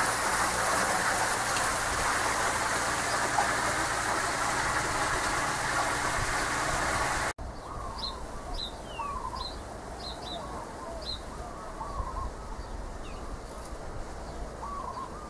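Small rock waterfall splashing steadily into a swimming pool. About seven seconds in it cuts off abruptly, and scattered bird chirps and calls follow over a quieter outdoor background.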